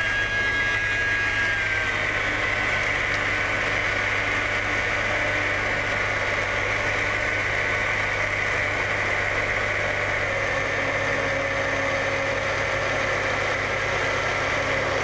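Electric blender running steadily, puréeing a cooked green pea soup. Its motor whine dips slightly in pitch about two seconds in.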